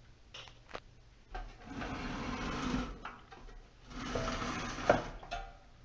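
The spring-loaded door of a toaster oven being worked on its hinges, with metal rubbing and scraping in two spells of about a second each. A few clicks come at the start, and a sharp snap comes near the end of the second spell.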